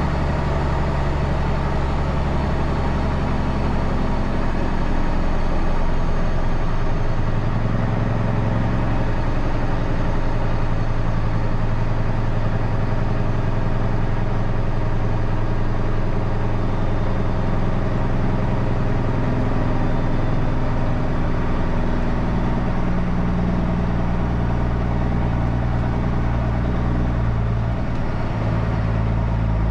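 Heavy truck's diesel engine running with a steady low hum, its pitch shifting several times as the engine speed changes.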